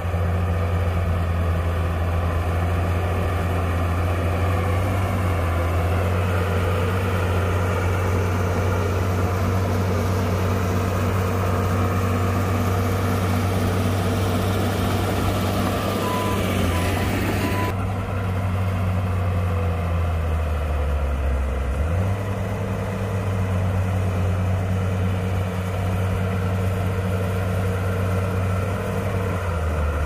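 Heavy diesel engine of a bulldozer running steadily. A rushing noise builds over several seconds and cuts off abruptly just past the middle, with three short beeps shortly before the cutoff. A few seconds later the engine speed dips and then comes back up.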